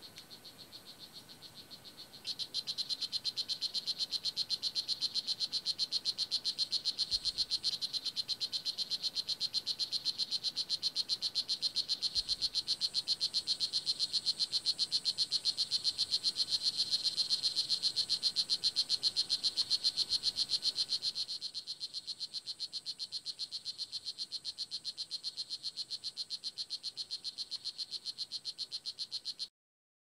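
Male blue jeans poison dart frog (strawberry poison frog, Oophaga pumilio) calling: a high-pitched buzzing trill of rapid, evenly spaced chirps, kept up without a break. It is its advertisement song, sung to attract a mate or warn off other males. It is faint at first, louder from about two seconds in, quieter again for the last third, and stops abruptly near the end.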